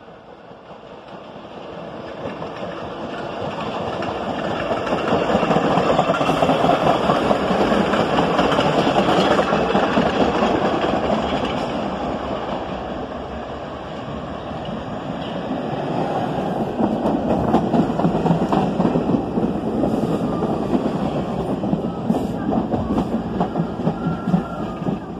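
New York City subway train running along the track, its wheels and cars rumbling. The noise builds over the first few seconds, eases a little around the middle, then swells again.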